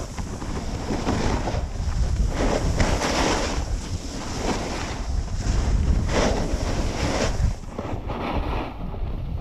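Snowboard sliding and carving on groomed snow, its edge scraping in swells every second or so as it turns, over a steady rumble of wind on the microphone.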